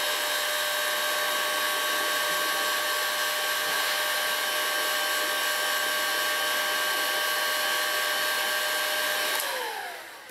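Electric heat gun blowing steadily, its fan whining over the rush of air, as it shrinks red heat-shrink tubing onto a crimped cable lug. Near the end it is switched off and winds down with a falling whine.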